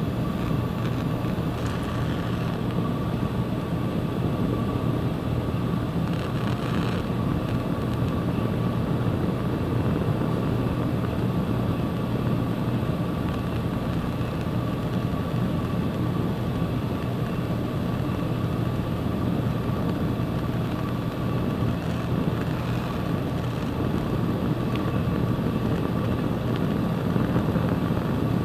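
Lit Bunsen burner running steadily with a low rumble, with a faint steady high tone above it.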